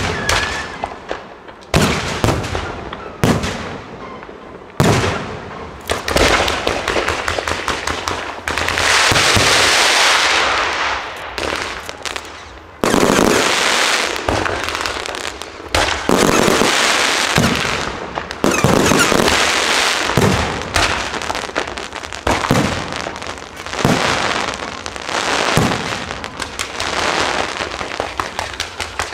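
Aerial firework shells bursting in a fireworks show: sharp booms one after another, with long stretches of dense crackling in between.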